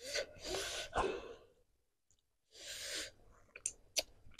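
A person sighing out hard twice, breathy and partly voiced, the gasping exhale of someone eating a very hot chili sambal. A few sharp mouth clicks follow near the end.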